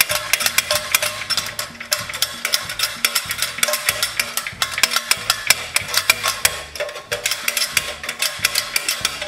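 A small Suffolk Super Colt engine rattling as it is shaken hard by hand with kerosene inside to rinse out the block, a dense clatter of sharp clicks. Background music with a stepping bass line plays under it.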